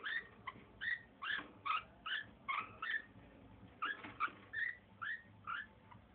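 A pet's breathing with a strange noise: short, high squeaks on each breath, about two to three a second, with a brief pause midway.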